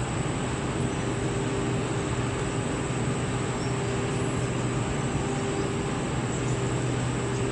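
Thermal bonded wadding production line running steadily: an even wash of fan and motor noise with a constant low hum and a steady higher tone.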